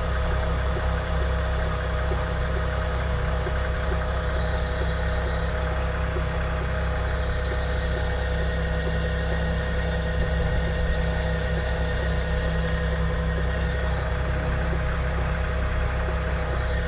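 Opel Omega B's X30XE 3.0 V6 idling steadily during warm-up, with a rapid light knocking over the engine note. The knocking is a loose flap of a partly torn drive belt slapping against the plastic engine cover.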